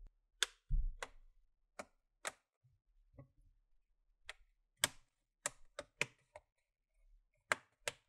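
Plastic snap clips of an Acer Aspire ES 14 laptop's palm rest clicking into place as its edges are pinched down: about a dozen sharp clicks, irregularly spaced, with a dull knock about a second in.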